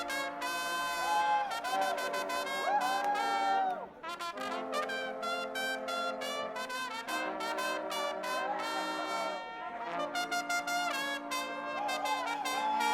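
Guggenmusik carnival brass band playing, with trumpets and trombones in loud held chords and a short break about four seconds in.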